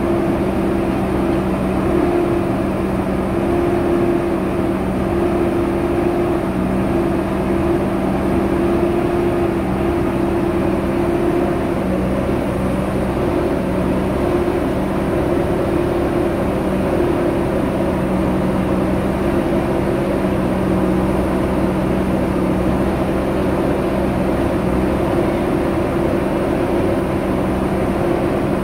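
JCB 3DX backhoe loader's diesel engine running steadily with an even hum as the machine moves slowly through mud.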